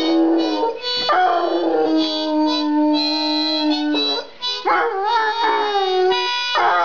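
Hound dog howling: long, drawn-out notes that slide down in pitch and then hold, with short breaks for breath about a second in and again about four seconds in.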